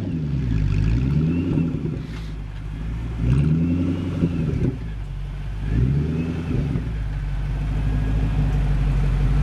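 Ford GT-X1's supercharged 5.4-litre V8 being blipped: the revs fall away at the start, rise and fall twice more about three and six seconds in, then settle to a steady idle as the car pulls away slowly.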